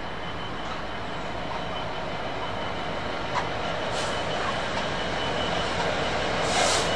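A train approaching along the line, its rumble growing steadily louder, with a couple of sharp clicks midway and a brief louder burst of noise near the end.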